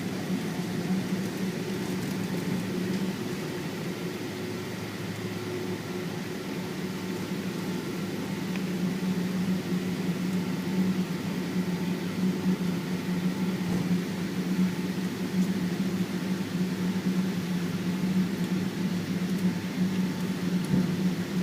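Steady low drone inside the cabin of a Boeing 777-200ER airliner: the engines running with the cabin air system, growing slightly louder about a third of the way in.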